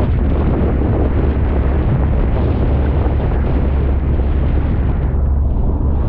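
Heavy wind buffeting on the microphone, a dense rumble over a steady low drone that does not change.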